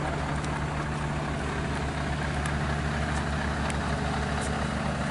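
Heavy diesel truck engine idling steadily with an even low pulse, a few faint clicks over it.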